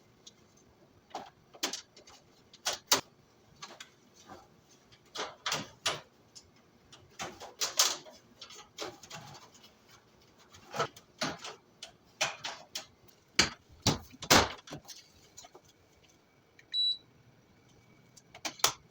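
Irregular plastic clicks and knocks of the heat pump's filters and front panel being handled and snapped into place, with a short high electronic beep near the end.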